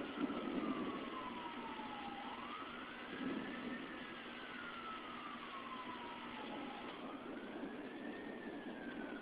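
Emergency vehicle siren on a slow wail. Its pitch twice rises quickly and then sinks slowly over about three seconds.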